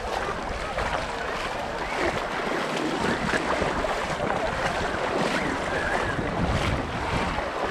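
Seaside ambience on a sandy beach: small waves washing on the shore and wind buffeting the microphone, with faint distant voices of beachgoers.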